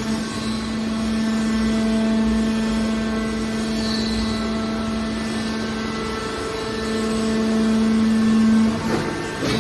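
Aluminium can baler machine's hydraulic pump motor running with a steady hum, louder for a couple of seconds near the end, then a few knocks as it changes.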